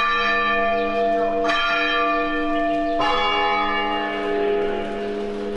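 Church bell tolled slowly: three strokes about a second and a half apart, each ringing on and fading under the next.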